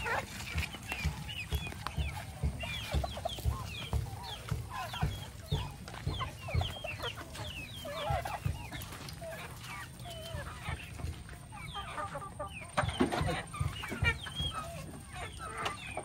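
A flock of chickens clucking busily, many short overlapping calls with no pause, as the birds crowd around at feeding time.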